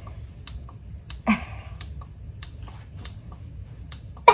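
Scattered small clicks of the buttons on a handheld portable light being pressed to change its settings, over a low steady hum.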